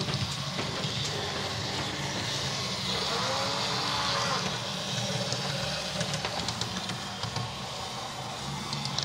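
Model railway running on an H0m layout: a steady hum and hiss with scattered light clicks from about halfway through.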